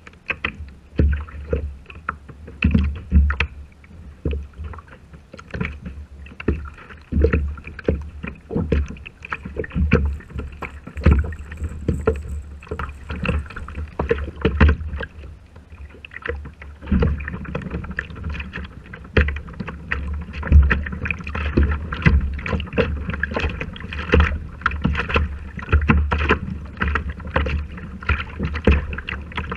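Ocean chop slapping and sloshing against a plastic Hobie kayak hull, heard close through the bow-mounted camera as irregular knocks over a steady low rumble.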